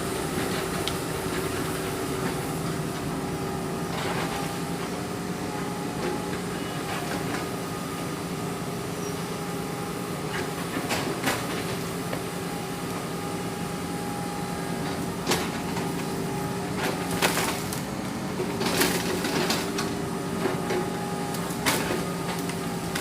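Hydraulic excavator's diesel engine running steadily, with scattered sharp knocks and clanks, more of them in the second half.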